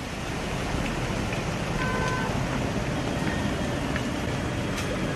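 Steady din of a crowded railway station platform, with a brief high tone about two seconds in.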